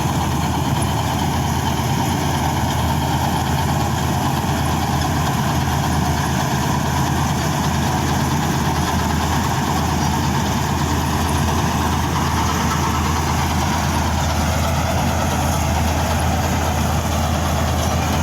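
Old Preet combine harvester's diesel engine running steadily at an even speed, with a continuous mechanical hum and rattle.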